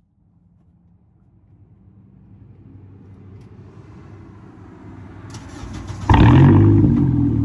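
Car engine started about six seconds in and then running, its exhaust note heard through the muffler; before it, a low sound slowly builds.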